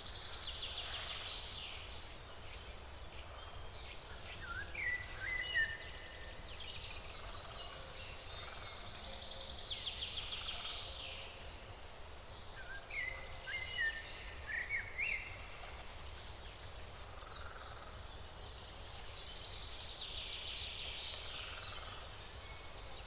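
Forest ambience with frogs croaking in rapid pulsed trains that come back about every ten seconds. Short rising bird chirps fall in between, over a steady low rumble.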